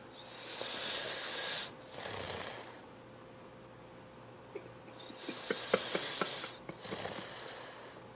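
A person snoring in sleep: two long snoring breaths, each in two parts with a short break between, the second with a crackling, clicking rattle.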